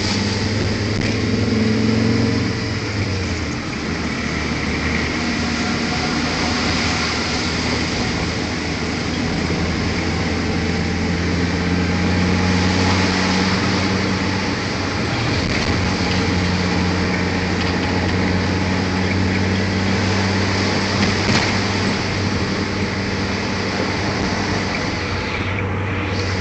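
A motor vehicle's engine running steadily, with a low hum and a wash of road and wind noise; the engine note dips briefly a few seconds in, then holds.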